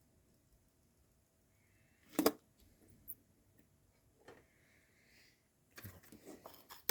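Small handling sounds of bench soldering work: one sharp knock about two seconds in, a couple of fainter clicks, and a patter of light clicks and taps near the end, with a faint hiss in between.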